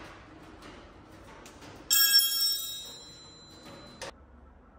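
A single sharp metallic strike that rings out with several high bell-like tones, fading over about a second, one tone lingering a little longer; a short click follows near the end.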